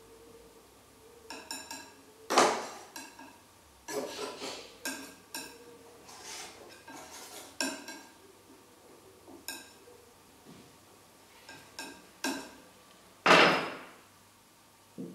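Painting tools clinking and knocking against the palette and small jars on a painter's table while oil paint is worked: an uneven string of sharp clinks with a short ring. The loudest come about two seconds in and near the end.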